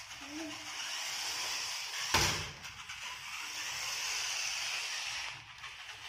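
Remote-control rock crawler's small electric drive motors and gearboxes running with a steady high whir as it drives, with one sharp knock about two seconds in.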